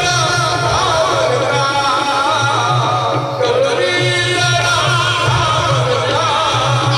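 Live Marathi tamasha song over a PA: a singer's wavering melody over dholki barrel-drum rhythm and instrumental accompaniment.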